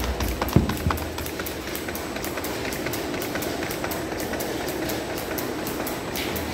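Pumps and drives of a sludge dewatering plant running steadily, with an even ticking about six to seven times a second and one sharp knock about half a second in.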